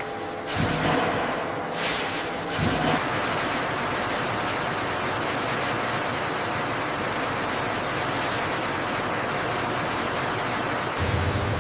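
Factory machinery noise: three short hissing bursts, then a steady even rush with a faint high whine, joined by a low hum near the end.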